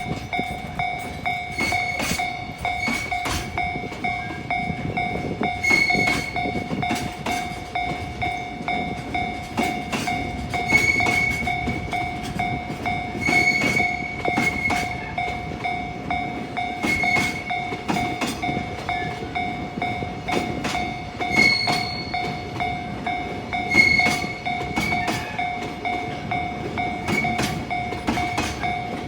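Japanese level-crossing alarm ringing steadily while a long freight train hauled by a JR Freight EH500 'Kintaro' electric locomotive rumbles past, its wheels clicking over the rail joints.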